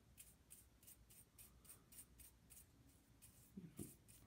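Soft-bristled lens brush swept in short, quick strokes across the rear element and metal mount of a camera lens: faint, brisk swishing, about three strokes a second.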